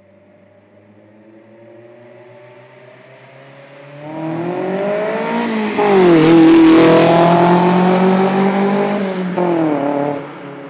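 Toyota MR2 SW20's naturally aspirated 3S-GE four-cylinder engine, breathing through a Japspeed aftermarket exhaust and induction kit, revving hard. The revs climb, dip briefly about six seconds in and climb again, holding loud before falling away near the end.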